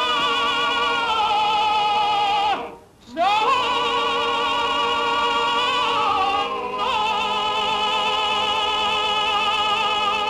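Synagogue cantor chanting a prayer solo, long held notes with heavy vibrato, breaking off for a breath about three seconds in.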